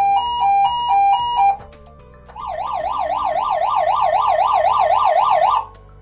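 Edwards 5530M Adaptatone Millennium electronic horn sounding a hi-lo tone, alternating between two pitches about twice a second, that stops about a second and a half in. After a short gap it sounds a fast warble, sweeping up and down about four times a second, for some three seconds.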